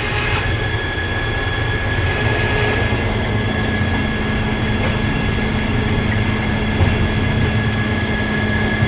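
Sawmill running steadily under its engine, with a steady high whine as the blade cuts a board off the side of a log.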